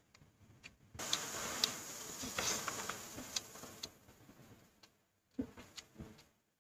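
Close-up eating sounds from a meal of pork chop and sausage in a styrofoam takeaway box: a rustling, crackly stretch with sharp clicks from about a second in, then a few separate clicks near the end as a plastic fork works in the box.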